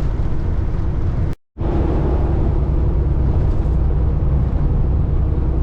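Cummins ISX15 diesel of a Peterbilt 579 semi truck running under way, heard from inside the cab with road noise as a steady low drone. The sound cuts out for an instant about a second and a half in, then resumes with a steady hum over the drone.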